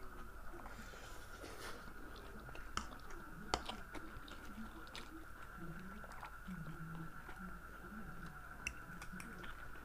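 Two people chewing and slurping spicy instant noodles, with a few sharp clicks now and then. A faint steady high tone runs underneath.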